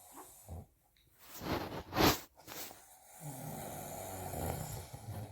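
A sleeping man snoring: a noisy breath about a second and a half in, then a long, low snore through the second half.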